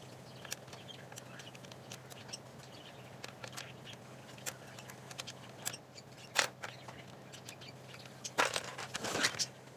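Scattered small clicks and taps from hands handling a Onewheel GT's plastic fender and grip-taped footpads, with a louder tap about six and a half seconds in and a short stretch of scraping and rubbing near the end.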